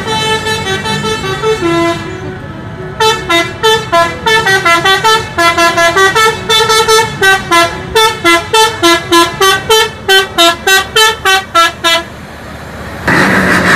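Indonesian tour bus's telolet horn, a set of tuned air horns. It sounds a long held chord, then after a short break plays a fast tune of short notes, about three or four a second. A short burst of hiss comes near the end.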